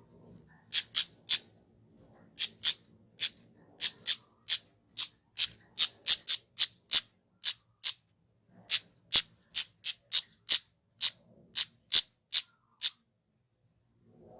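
Kemade (flowerpecker) calling: a long series of very short, sharp, high-pitched call notes, some in quick runs and some spaced out, with two brief pauses, stopping shortly before the end.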